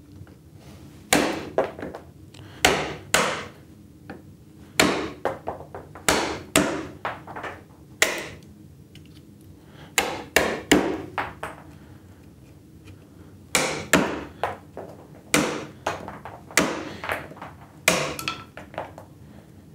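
Mallet striking the handle of a bench chisel, chopping down into soft pine and splitting off the waste. About two dozen sharp knocks come in uneven clusters, with a pause of about two seconds in the middle.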